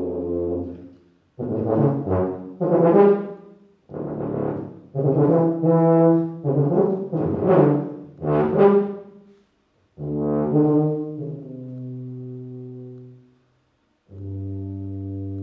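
Solo tuba playing: a low held note fades out, then phrases of short, swelling notes separated by brief silences, then a note that steps down to a long lower note, and near the end another long low held note.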